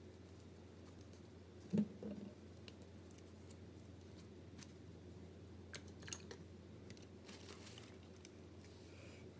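Faint tabletop handling of plastic acrylic paint bottles: a dull knock about two seconds in, then a few light clicks and a soft rustle around six to eight seconds.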